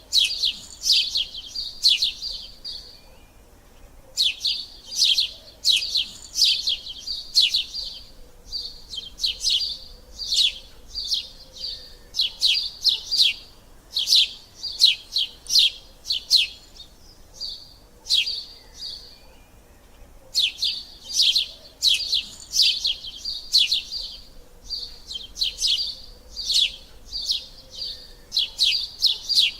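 Sparrow chirping in quick runs of short, sharp chirps, with a pause of a second or two between some runs.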